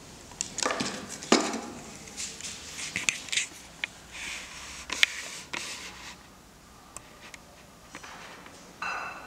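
Handling noise: irregular scratching, rubbing and scraping with several sharp clicks, the loudest about a second in.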